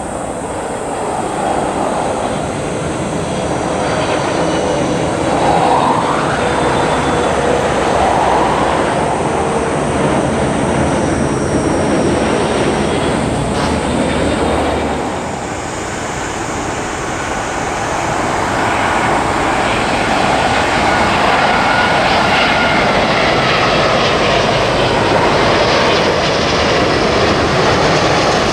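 Jet airliner engines at approach power as the planes pass low on final approach: a Boeing 777-300ER's GE90 turbofans running with a whine that shifts in pitch. About halfway through the sound dips, then builds again as an Airbus A380 comes in on approach.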